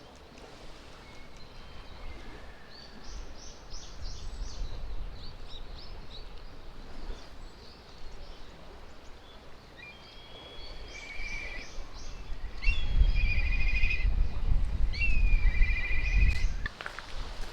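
Birds chirping in repeated short calls, thicker in the second half, over a low rumble that becomes loud and drowns the low end for a few seconds near the end.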